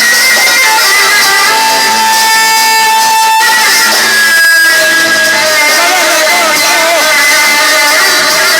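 Instrumental passage of an Arabic mawwal song played by a band, with no singing: a melody of held notes that slide and waver in pitch over a steady accompaniment.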